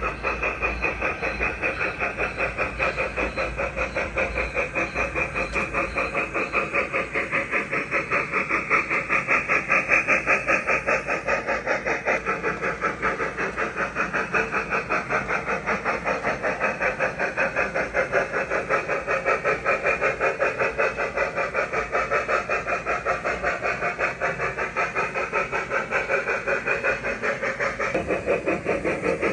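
TCS WowSound DCC sound decoder in an O scale model of a Norfolk & Western 4-8-0 steam locomotive, playing a steady steam-engine chuff through the model's small speaker at about four chuffs a second.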